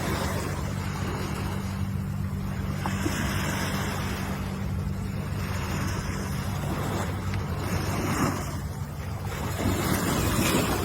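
Ocean surf: waves washing in, the rush of water swelling and fading about every two to three seconds, over a steady low rumble.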